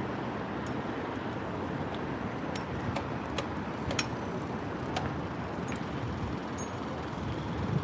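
Steady city street traffic noise from passing cars on a multi-lane avenue, with a few faint, short ticks scattered through it.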